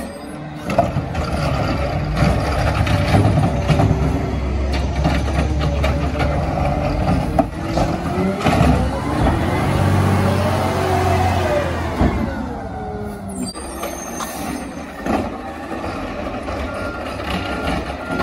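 Peterbilt 520 rear-loader garbage truck with a McNeilus ZR body, its engine running loud and heavy, revving up and back down in pitch, with sharp clanks mixed in. The engine settles quieter about 13 seconds in, and a backup alarm starts beeping near the end.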